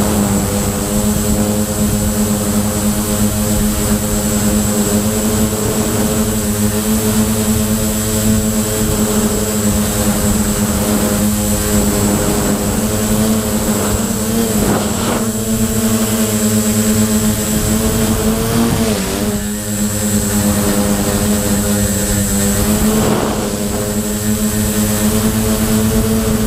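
The quadcopter's four brushless motors (Multistar 2213-980) spinning 9x4.7 Gemfan props, heard from the onboard camera, running at a steady pitch. The pitch bends briefly with throttle changes about 15, 19 and 23 seconds in.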